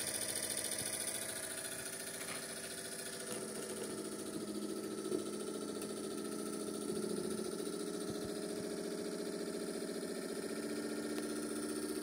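Small electric motor of a vintage Piko Sonnette toy washing machine running, a steady hum with one sharp click about five seconds in.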